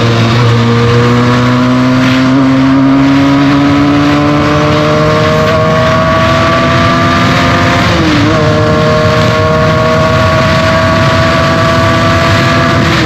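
Benelli TNT 300's parallel-twin engine through its stock exhaust, recorded from the bike while riding, pulling steadily with its pitch slowly rising. The pitch dips briefly about eight seconds in, then climbs again.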